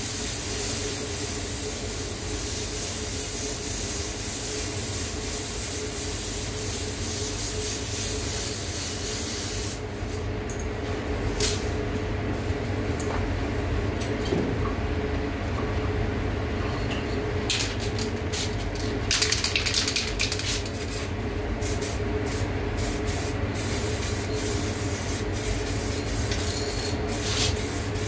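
Paint spray gun hissing steadily as clear coat is sprayed over fresh base coat. About ten seconds in the hiss stops and gives way to short separate bursts of spray. A steady low hum of the spray booth's ventilation runs underneath.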